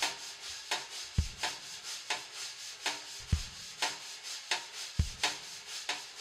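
Rhythmic percussion beat: quick scratchy, shaker-like strokes about four a second, with a deep thump every second or two.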